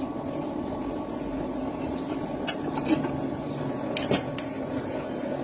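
Stick (SMAW) welding arc crackling steadily, with a few sharper pops.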